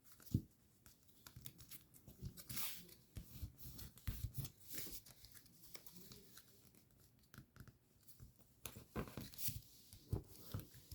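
Sheet of origami paper being folded and creased by hand: faint, irregular rustles and crinkles with short taps as the folds are pressed flat.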